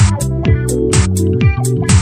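Background music with a steady beat of about two strong beats a second over held low notes.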